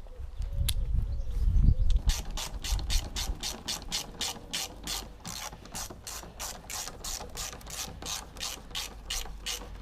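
Hand socket ratchet clicking as a bolt is turned, in a steady run of about four clicks a second that starts about two seconds in.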